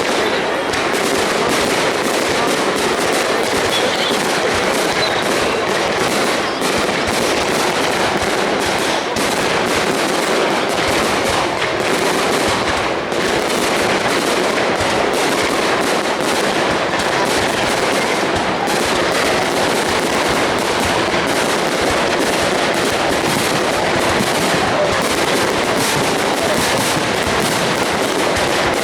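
High-altitude aerial fireworks going off in a dense, unbroken barrage of bangs and crackles, loud throughout.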